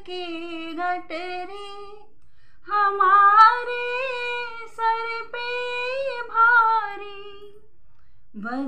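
A woman singing a Hindi devotional bhajan unaccompanied, holding long drawn-out notes that waver in pitch, with two short breaks for breath, about two seconds in and near the end.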